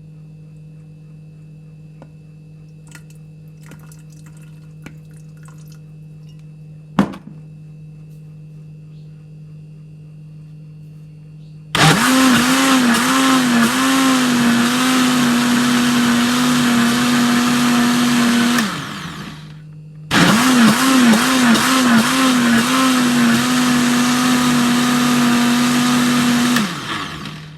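Electric blender blending a thick avocado smoothie thinned with a little extra water, run twice for about seven seconds each with a short stop between; each run starts with a wavering motor pitch that settles into a steady whine. Before it, a faint steady hum and a single knock.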